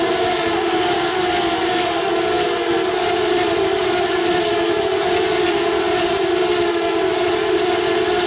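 Engines of a pack of Formula Renault 3.5 single-seater race cars running at high revs, a loud, steady whine in which several pitches overlap and slide down as the cars pass.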